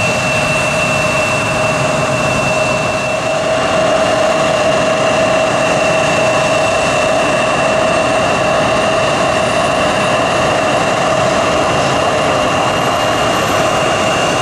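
Jet airliner's turbofan engines running steadily on the ground, a loud whine with a strong high tone held over a broad engine rush. A faint, thinner whine creeps slowly upward in pitch from about halfway.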